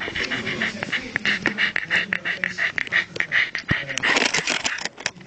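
A dog panting fast and rhythmically, about five breaths a second.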